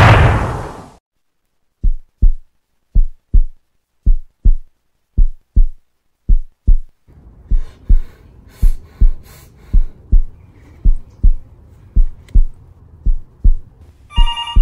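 Heartbeat sound effect: low double thumps, lub-dub, about once a second and steady, after the tail of a loud gunshot dies away in the first second. A faint low drone comes in behind the heartbeat about halfway, and a telephone starts ringing at the very end.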